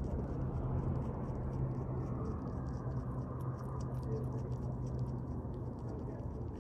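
Cottontail rabbit chewing carrot: a quick, irregular run of small crisp crunching clicks, several a second, over a steady low rumble of background noise.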